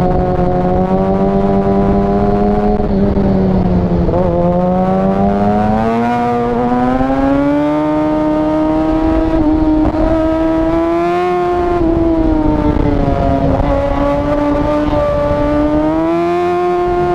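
Yamaha R6 inline-four sport-bike engine pulling at steady mid-to-high revs. The pitch eases off briefly about four seconds in, then climbs slowly, dips again and rises once more near the end.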